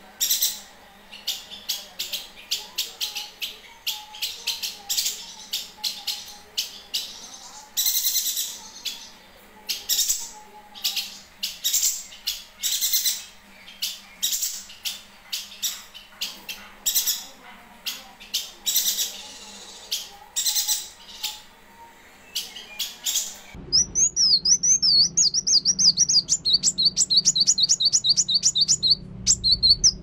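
Caged yuhina chirping over and over, a dense run of short, sharp, high-pitched notes. About 23 seconds in, a different recording cuts in: a fast trill of repeated high notes over a low hum.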